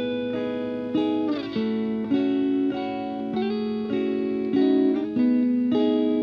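Background music: an instrumental guitar piece with plucked notes and chords changing about once a second.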